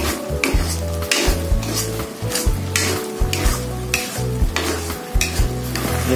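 Metal spatula scraping and stirring a simmering tomato-chili sauce in a non-stick wok: repeated quick scrapes, roughly two a second, stopping near the end as the spatula is laid in the pan.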